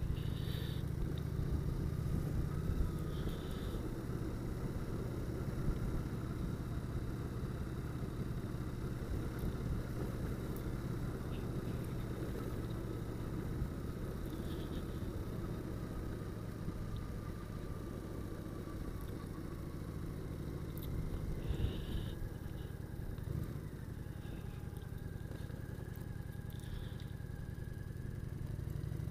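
Motorcycle engine running steadily at low road speed. There are a few brief knocks about three quarters of the way through.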